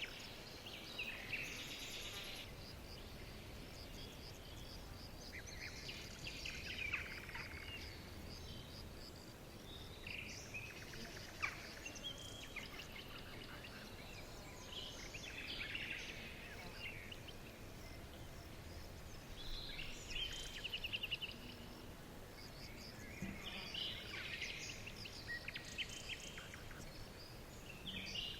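Small birds chirping and calling in short bursts of rapid high notes every few seconds, over a faint steady background hiss.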